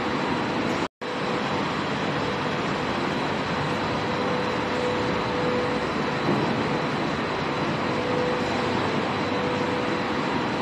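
Steady factory-hall machinery noise: an even, continuous din with a faint steady hum tone running through it. It cuts out for an instant about a second in.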